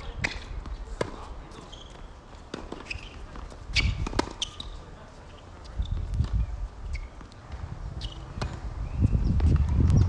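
Tennis rally on a hard court: sharp pops of racket strings striking the ball, with ball bounces between the hits, spaced about a second apart or more. A low rumble swells near the end.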